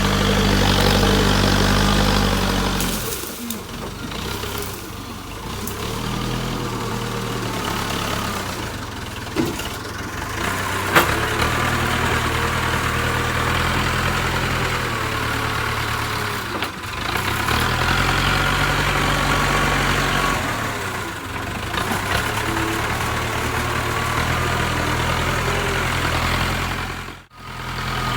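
Backhoe loader's diesel engine running, its speed and load rising and falling several times, with a sharp click about eleven seconds in.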